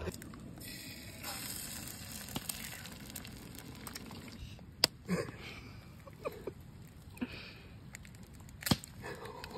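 Eggs sizzling in a small nonstick pan over a canister gas stove, a steady faint hiss. Two sharp cracks, about five seconds in and near the end, as more eggs are broken into the pan.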